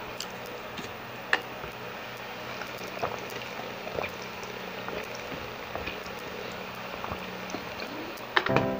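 Drinking water from a plastic sports bottle's spout: quiet sucking and swallowing with a few small clicks, over a steady background hiss. Music starts near the end.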